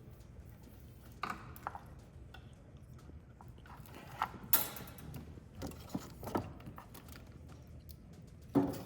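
Irregular light clicks and knocks of parts being handled during wiring work, a few scattered strikes with the loudest about halfway through.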